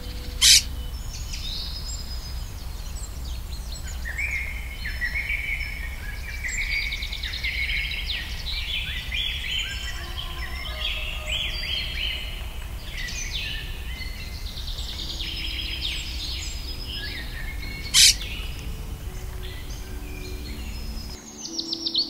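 Several small songbirds chirping and trilling together in a dense, overlapping chorus over a steady low rumble. A sharp click cuts through twice, about half a second in and near the end, and these are the loudest sounds.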